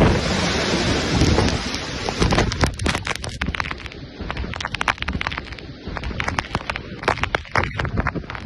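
Typhoon wind and rain, at first a dense steady roar. From about two and a half seconds in it breaks into rapid, irregular pelting and clicking of rain striking close to the microphone.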